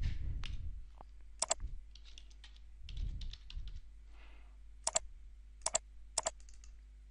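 Computer mouse clicks, each a crisp paired click of press and release, spaced a second or so apart, with a short run of keyboard typing about two seconds in. Low muffled rumbles come at the start and around three seconds in.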